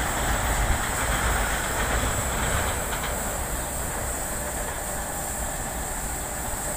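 Freight train's wagons rolling along the track: a steady wheel-and-rail noise that slowly fades as the train moves away.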